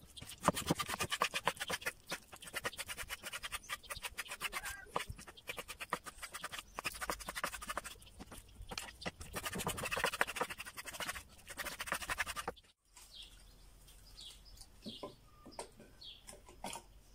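Chef's knife cutting raw beef into pieces on a wooden cutting board: a fast, busy run of knocks and taps of the blade against the board. Near the end this stops abruptly and birds chirp faintly.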